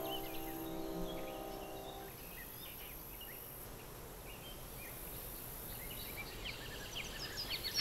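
Small birds chirping and singing in parkland, short quick calls that grow busier near the end. A held soundtrack music chord fades out about two seconds in.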